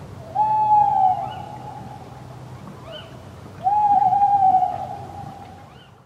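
An owl hooting: two long, steady hoots of about two seconds each, the second starting about three seconds after the first, with faint high chirps of other birds behind them.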